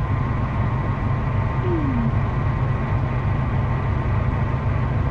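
Chevy P30 motorhome engine idling steadily, a low pulsing rumble with a thin steady whine above it.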